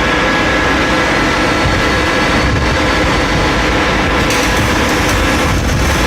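CNC machine running: steady mechanical noise with several constant whining tones, getting brighter and hissier about four seconds in.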